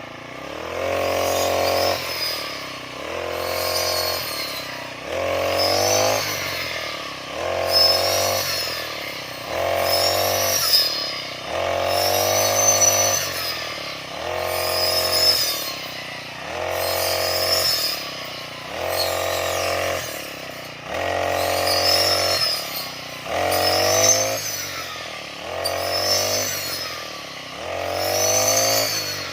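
Brush cutter engine revved up and let back down again and again, a rising whine about every two seconds, as the grass is cut in sweeps.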